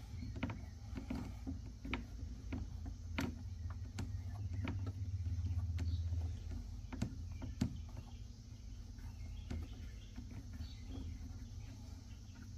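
Scattered light clicks and knocks of tonneau cover clamps being fitted and hand-tightened on a pickup bed rail, over a steady low hum that grows louder for a few seconds midway.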